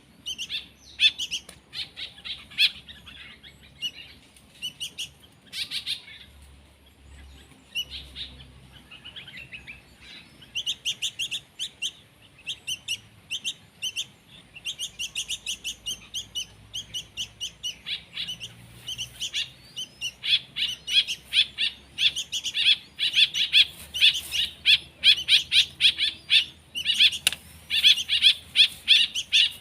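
Songbird chicks chirping in rapid, repeated high calls, the begging calls of young birds waiting to be fed. The chirping thins for a few seconds early on, then grows denser and louder in the last third.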